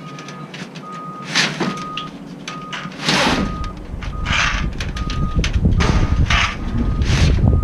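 Reversing alarm on a vehicle backing up, a single high beep repeating about once every 0.8 seconds. About three seconds in, a diesel engine's low rumble comes in and builds, with several short loud hisses over it.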